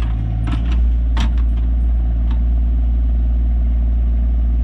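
Rural King RK24 tractor's Yanmar diesel engine running steadily, with a few sharp knocks over it in the first couple of seconds.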